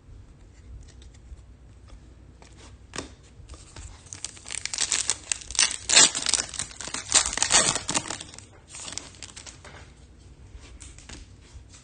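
Foil trading-card pack wrapper being torn open and crinkled by hand. There is a quick run of rips and crackles from about four to eight and a half seconds in, with scattered soft clicks and rustles before and after.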